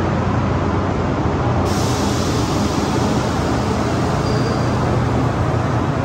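Audi A3's 1.9 TDI Pumpe-Düse four-cylinder diesel, on a straight-through exhaust with no silencer, running loud and steady on a chassis dynamometer, its driven wheels spinning the rollers under a wash of tyre and roller noise.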